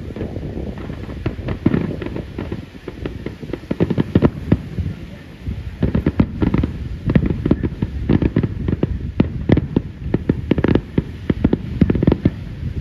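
Aerial fireworks display: many shells bursting in rapid, overlapping succession, a steady barrage of booms and crackles.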